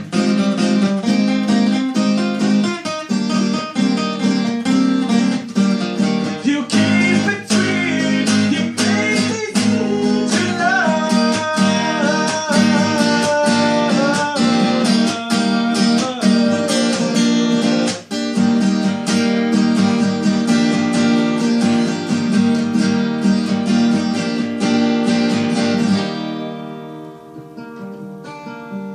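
Acoustic guitar strummed in steady rhythm through a song's closing passage. Near the end the strumming stops and a final chord rings and fades away.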